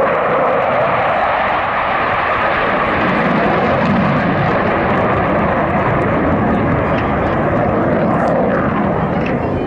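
Jet noise from a pair of Dassault Mirage 2000D fighters, each with a single SNECMA M53 turbofan, flying past in formation. It is a loud, steady rush that eases slightly near the end.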